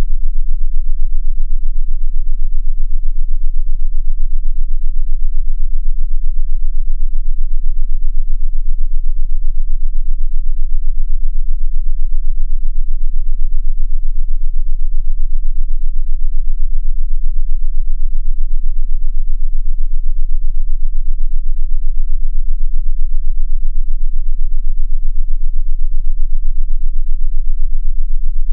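A steady, very low-pitched synthesized frequency tone with a fast, even flutter in loudness, played as a 'concentration assist' frequency track.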